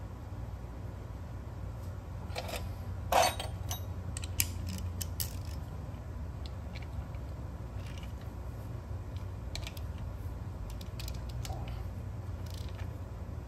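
Scattered light metal clicks and clinks as the camshaft sprocket's bolts are handled and threaded in on an LS V8 timing set, with one louder knock about three seconds in. A run of quicker ticks near the end as a ratchet is worked on a cam bolt, over a steady low hum.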